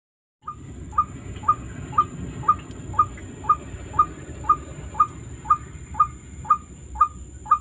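Electronic heart-monitor-style beep sound effect, a short ping repeating evenly twice a second from about a second in, over a low background hiss.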